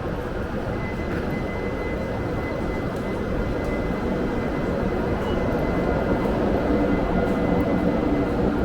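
Hokuriku Shinkansen train running: a steady rushing rumble that slowly grows louder, with a faint steady high tone over it.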